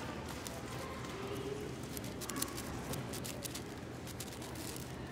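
A MoYu AoShi WRM 6x6 plastic speedcube being turned rapidly during a solve, making a quick, irregular run of clicks and clacks.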